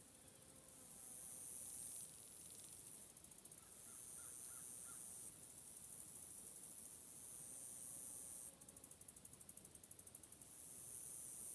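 Insects calling in a high-pitched buzz that comes in repeated bursts of two to three seconds, some of them a rapid pulsing trill. A few faint chirps sound about halfway through.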